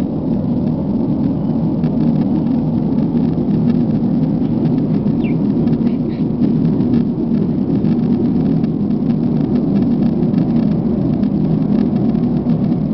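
A loud, steady, low droning rumble with no rise or fall, like the sound of an aeroplane or very large machinery running, from a source that cannot be located (the so-called "Hum"). A couple of short high bird chirps sound over it about five and six seconds in.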